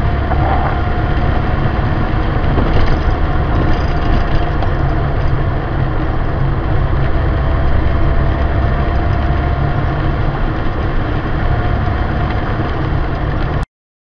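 In-car sound of a 1976 Rover 2200TC's four-cylinder engine driving along a dirt track: a steady low rumble of engine and road noise that cuts off abruptly near the end.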